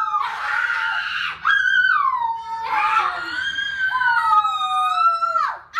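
Children howling like wolves: several high-pitched voices holding long howls that slide down in pitch, with a brief break about a second and a half in.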